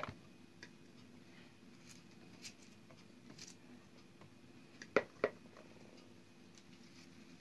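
Light clicks and taps as garlic cloves are pushed in among peppers in a ribbed plastic pickle jar, with a sharp tick at the start and two sharp knocks close together about five seconds in.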